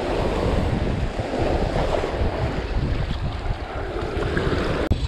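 Small surf waves breaking and washing up the sand at the water's edge, with wind buffeting the microphone.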